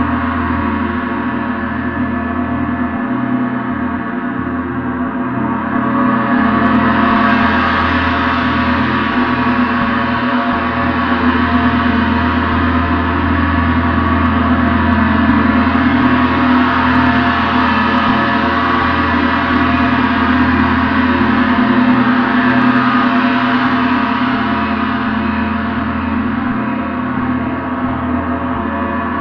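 Gong played in a continuous, energetic wash: a dense low hum under many ringing overtones, with no single strike standing out. The shimmering upper sound swells about six seconds in and again midway, then eases back near the end.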